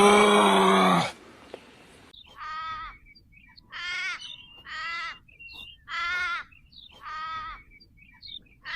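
Animal calls: a loud, harsh, pitched call lasting about a second, then a run of six shorter cawing calls about once every second and a quarter, each dropping in pitch at its end.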